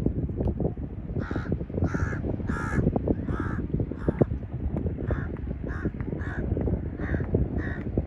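A bird giving a series of harsh, crow-like caws, about ten short calls at roughly two a second, starting about a second in, over a steady low rumble.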